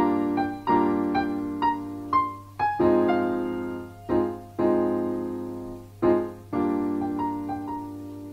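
Outro music: a keyboard playing a slow run of ringing chords with a higher melody line, the last chord left to die away.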